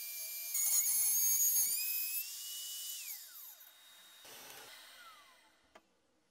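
Bosch Professional router running at high speed with a high whine that sags and recovers in pitch as it cuts through a wooden board. About three seconds in, the whine falls steadily in pitch and fades as the motor winds down.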